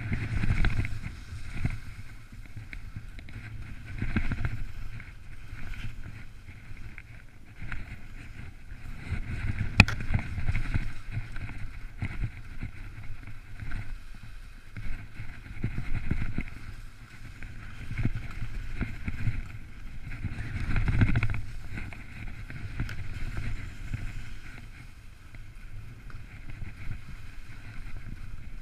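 Wind buffeting the camera's microphone during a ski descent, with skis hissing over the snow. The rumble and hiss swell and fade every few seconds, and there is one sharp click about ten seconds in.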